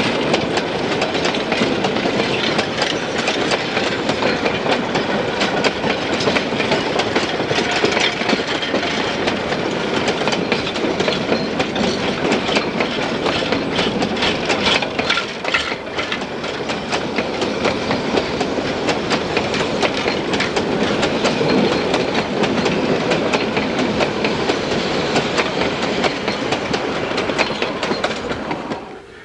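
Narrow-gauge freight cars rolling past close by: a steady rumble and rattle, thick with quick wheel clicks. It drops away near the end as the last car clears.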